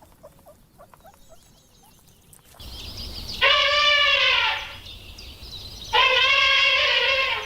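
An animal calling twice: two loud, drawn-out, pitched calls of about a second each, a second and a half apart, after a few seconds of faint chirping.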